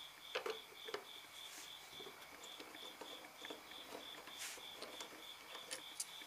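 Faint scattered clicks and light taps of small rusty metal hardware being worked loose and handled by hand. A steady, evenly pulsing high chirp sounds underneath throughout.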